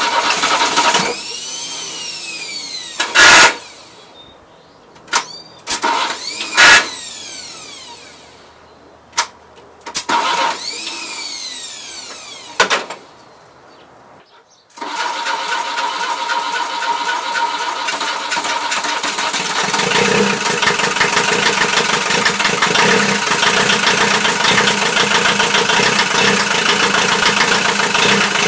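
A starter motor on a 1982 VW Caddy's 1.6-litre diesel is jumped by hand with wires: it whirs up and down in spurts, with several loud sharp snaps. About fifteen seconds in the engine catches and keeps running steadily after its rebuild, a little louder from about twenty seconds in.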